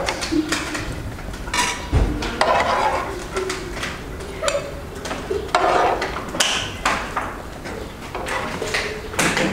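Pieces of fried meat and vegetables dropped one at a time by hand into an oiled pan on the stove, each landing with a short burst of sizzle, with a dull knock about two seconds in.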